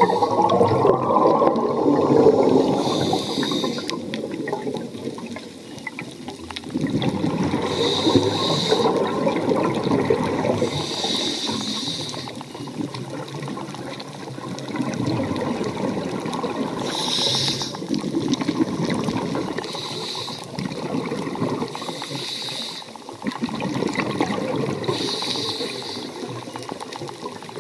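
Water rushing and bubbling, swelling and easing, with a short hiss recurring every two to three seconds.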